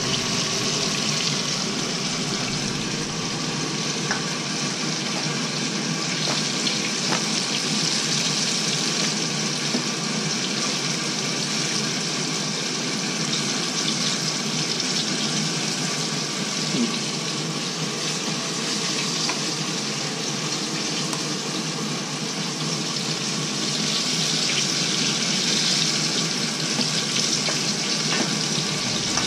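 Flour-coated chicken pieces deep-frying in a pan of hot oil, giving a steady, unbroken sizzle.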